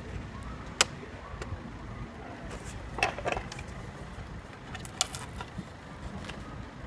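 Sharp clicks and light clatter from the metal latches and panels of an AKD Sat-Comm Karbon-75 flyaway satellite dish as a reflector petal is pressed in, turned and locked. There are a few separate clicks, with a small cluster about three seconds in, over a steady low rumble.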